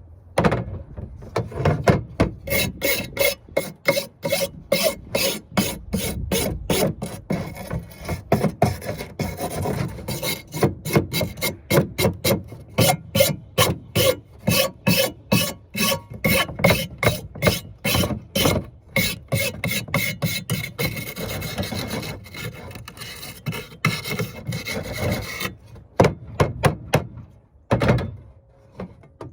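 A brush scrubbing dust out of gas-furnace burners in rapid back-and-forth strokes, about three a second, pausing briefly near the end.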